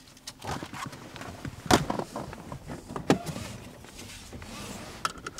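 Handling sounds inside a car: light rustling with a few sharp clicks and knocks. The loudest click comes about a second and a half in, and another about three seconds in.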